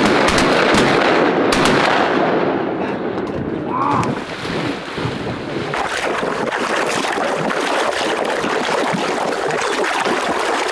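Water sloshing and splashing as a retriever wades through shallow floodwater carrying a duck.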